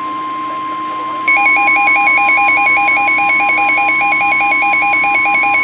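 NOAA Weather Radio's 1050 Hz warning alarm tone, a steady high tone. About a second in, a weather radio receiver's own louder alert joins it: a rapidly warbling electronic beep that the alarm tone sets off.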